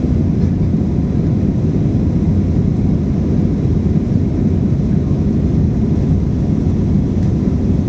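Steady low-pitched cabin noise inside an Airbus airliner climbing after takeoff: its jet engines at climb power and the rush of air over the fuselage.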